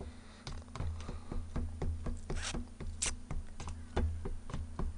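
Ramen noodles being eaten: a run of short wet mouth clicks from chewing, with two louder slurps about two and a half and three seconds in.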